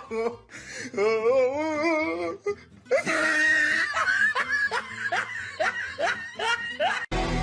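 A person laughing hard: a wavering drawn-out voice first, then a long run of quick high-pitched laughs. Music cuts in suddenly near the end.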